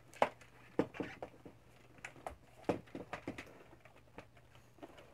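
Rummaging among small items on a desk: irregular light clicks and knocks, the sharpest near the start, over a faint steady low hum.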